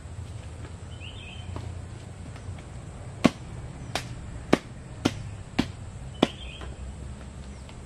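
Six sharp wooden knocks, about two a second, as a bamboo pole is worked into the ground. A bird chirps twice.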